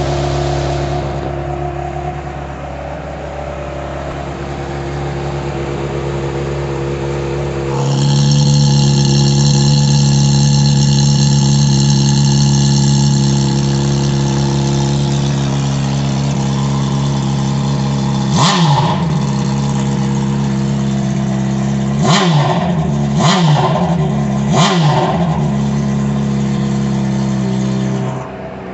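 Honda CBR600RR inline-four idling through an aftermarket exhaust, its note getting louder about a quarter of the way in. Later it is blipped four times, the revs rising and falling back to idle each time.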